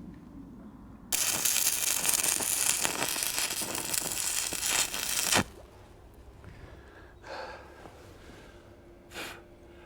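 Electric arc welder welding a steel gate hinge: a steady, dense sizzling crackle that starts about a second in, lasts about four seconds and cuts off sharply. A few faint knocks follow.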